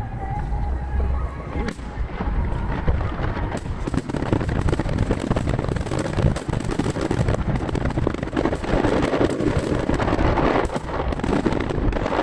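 Aerial firework shells bursting in rapid, overlapping succession, heard from a distance with booms and crackle echoing back. The sound is played at triple speed, so the reports come thick and fast over a continuous low rumble.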